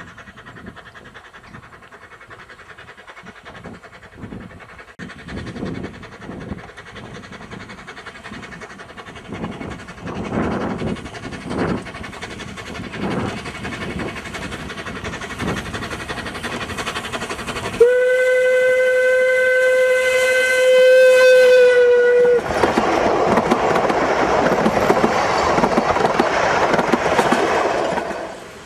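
Isle of Man Steam Railway Beyer Peacock 2-4-0T narrow-gauge steam tank locomotive working a train, its exhaust chuffs growing louder as it approaches. Past the middle comes one long steady steam whistle of about four seconds. Then a loud rushing clatter as the train passes close by, fading out near the end.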